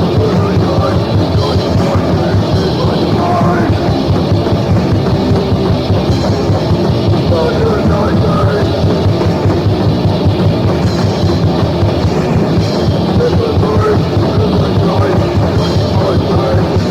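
Crust punk band playing a loud, dense song from a demo recording, the drum kit driving without a break.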